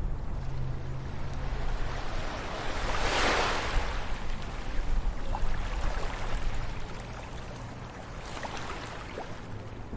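Ocean waves breaking on a beach: a wave crashes about three seconds in and its wash fades over the next few seconds, with a smaller wave near the end over a steady low rumble of surf.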